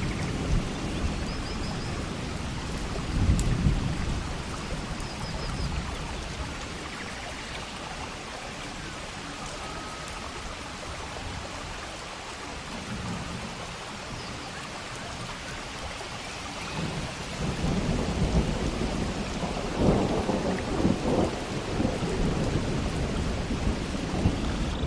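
Steady rain with rolling thunder. The thunder rumbles low about three seconds in and swells again, most strongly, from about seventeen to twenty-two seconds in.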